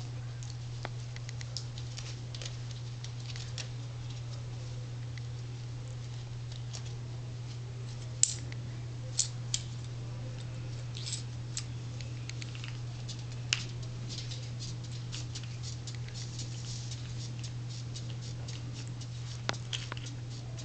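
Light clicks and taps of Yorkie puppies' claws on a hardwood floor and of toys being knocked about, with a few sharper clicks about eight, nine, thirteen and nineteen seconds in, over a steady low hum.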